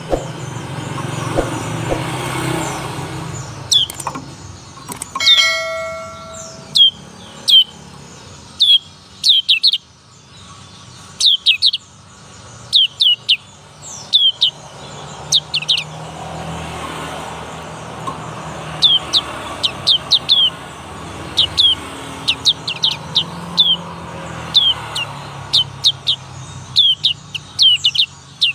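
Young black-capped white-eye singing, a bird still learning its song: short, sharp, downward-sliding chirps, often in quick pairs or threes, repeated throughout over a low background rumble.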